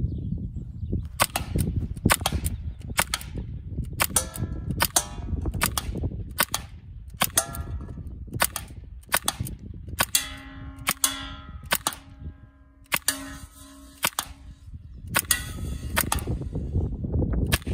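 Sig Sauer Virtus .22 PCP air rifle fired in rapid succession, roughly one shot a second. Each is a loud, sharp crack from the unsuppressed muzzle, and some are followed by a brief metallic ring.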